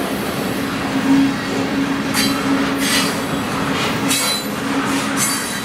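Freight cars of a manifest train rolling past on steel rails, a steady low drone with a constant hum. From about two seconds in, short high-pitched wheel squeals come roughly once a second, four times.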